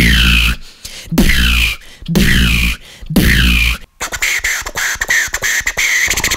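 A beatboxer making mouth sound effects: four deep bass hits, each with a falling high sweep, about a second apart. From about four seconds in, a fast run of clicks follows.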